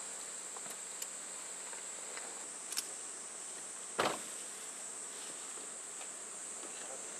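Summer insects chirring in one steady, high-pitched tone. A single short knock comes about four seconds in, with a couple of faint ticks shortly before it.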